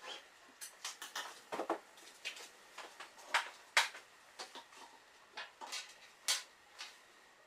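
Cotton quilt top and batting being handled and shifted by hand, with an acrylic quilting ruler lifted off near the start: a string of irregular short rustles and scrapes.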